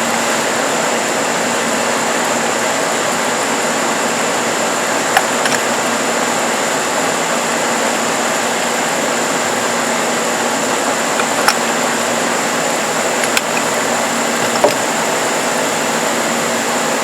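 Small bench-top disc sander running free, a steady motor hum with a high whine, and a few faint clicks.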